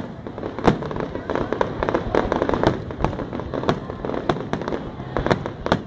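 Aerial fireworks shells bursting in quick succession: a dense string of sharp bangs and crackles, with the loudest bang just under a second in.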